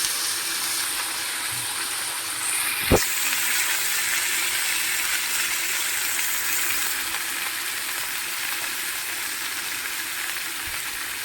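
Food sizzling steadily as it fries in hot oil in a pan, with a single sharp knock about three seconds in.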